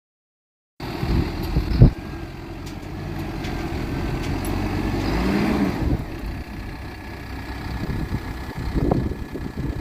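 Backhoe's diesel engine running under load, starting almost a second in and building in level towards the middle before easing off, with one sharp knock about two seconds in.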